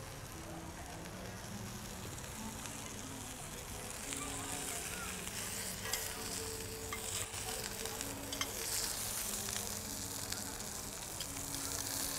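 Pork chop searing in a hot skillet: a steady sizzle, with a few light clicks of metal tongs against the pan about halfway through.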